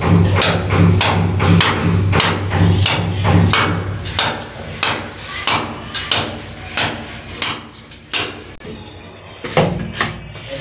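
A hammer striking repeatedly, about two blows a second, with a short pause near the end before two more blows.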